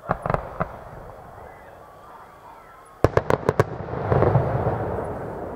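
Distant fireworks: a few pops at the start, then about three seconds in a sharp bang followed by a quick run of cracking reports, and a rumbling crackle that slowly fades.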